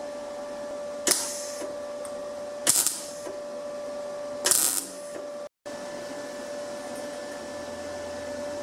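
MIG welder tack-welding 2 mm steel: three short bursts of arc, each under half a second, about a second and a half apart. A steady hum runs underneath and continues alone after the last tack.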